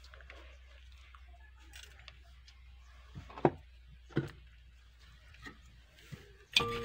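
Mostly quiet, with a few short knocks and scuffs, the loudest about three and a half seconds in. Background music with held notes starts just before the end.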